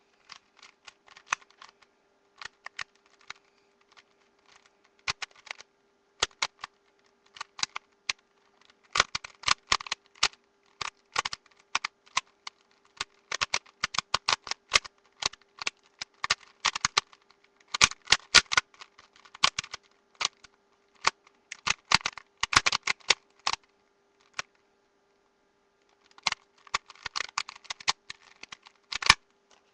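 Plastic puzzle cube being speedsolved by hand: rapid runs of clicking as the layers are turned, broken by short pauses. A faint steady hum underneath.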